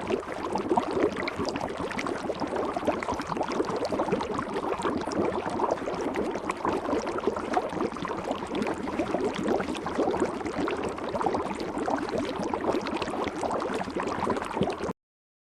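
Water running in a small stream, a dense patter of small splashes and bubbling; it cuts off suddenly shortly before the end.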